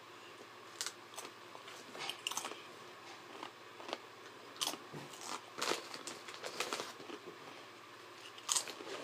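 Doritos Roulette tortilla chips being bitten and chewed: irregular sharp crunches, with a fresh bite near the end.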